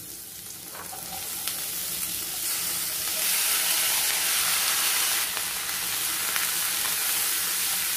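Boiled black-eyed peas tipped into a kadai of onions frying in oil, setting off sizzling that grows louder over the first few seconds. A spatula stirs them through the pan.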